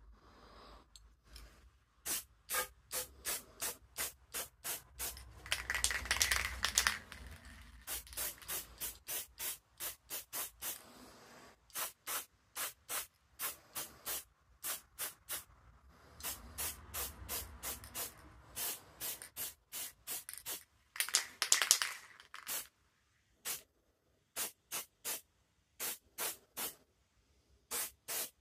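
Aerosol spray paint can sprayed in many quick short bursts, about three a second, with two longer sprays about six seconds in and again near twenty-one seconds.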